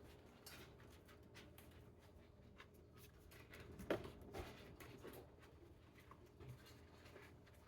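Near silence: quiet room tone with scattered faint taps and one short, slightly louder knock about four seconds in.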